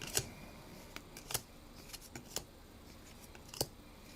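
Trading cards being handled and flicked through by hand: a handful of sharp, short clicks and snaps, the strongest just after the start and about three and a half seconds in.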